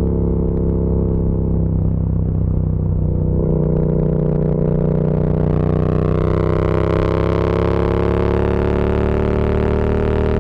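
Yamaha MT-07's parallel-twin engine and exhaust running at a steady low speed, then gently rising in pitch and brightening from about four seconds in as the revs climb.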